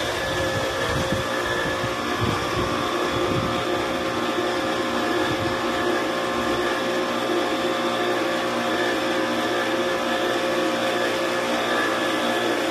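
Pressure washer motor running steadily with a constant hum and hiss, driving a foam lance that sprays snow foam onto a car.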